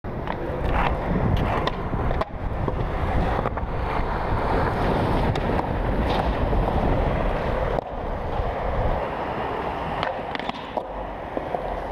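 Skateboard wheels rolling over concrete with a steady rumble, broken by several sharp clacks of the board, and the grind of a truck sliding along a ledge in a switch crooked grind.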